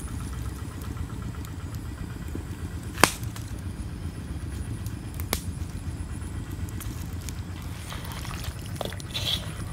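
A wood cooking fire giving a sharp pop about three seconds in and a smaller one a couple of seconds later, over a steady low rumble. Near the end, soft wet rustling of hands mixing fish and herbs in a metal wok.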